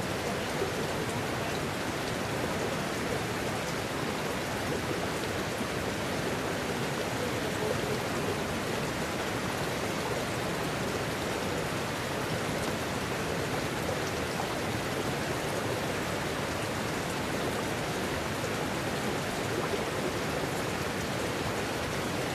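Steady rushing of mountain water, a creek or small waterfall, as an even hiss without let-up.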